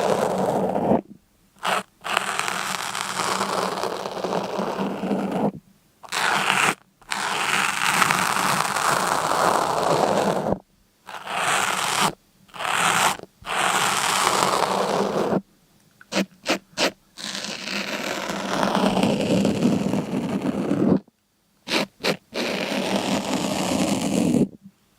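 Repeated scraping strokes, each a noisy rasp of one to a few seconds, broken by short silent gaps, with a quick run of short strokes in the middle and two more near the end.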